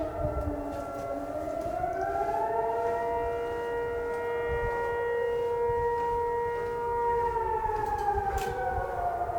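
Siren-like wail of several tones sounding together. It dips at first, rises over about a second and a half, holds steady for about four seconds, then falls away near the end.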